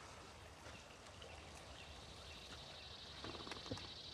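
Quiet outdoor night ambience with a steady high chirring of insects, with a few faint knocks about three seconds in.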